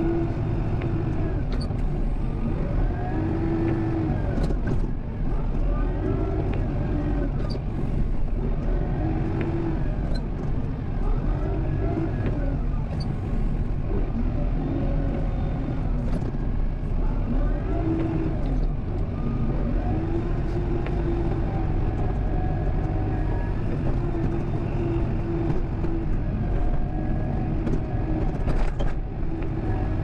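Kubota M7060 tractor's diesel engine running while it pushes snow with a pusher plow, its revs rising and falling every couple of seconds. A few faint knocks come through now and then.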